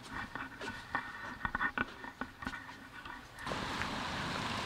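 Quiet shop room tone with scattered light clicks and taps. About three and a half seconds in it gives way to a steady, louder outdoor rush of parking-lot background noise.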